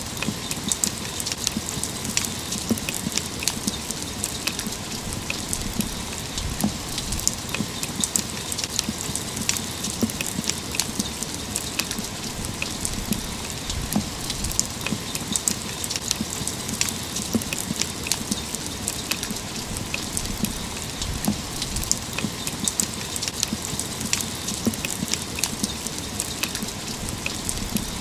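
Steady rain falling, with many close drops landing as sharp, irregular ticks over a continuous hiss.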